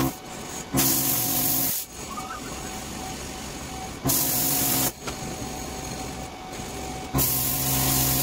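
Hand-held power cutting tool going through sheet metal in three bursts of loud hissing with a buzz under it, each about a second long, the last running on past the end; a lower steady hum fills the gaps between bursts.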